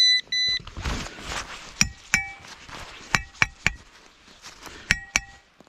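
Two short electronic beeps from a metal-detecting pinpointer. Then a rustle in leaf litter and about seven sharp metallic clinks that ring briefly, in groups of two, three and two, as a rusty old iron hammerhead just dug from the ground is handled.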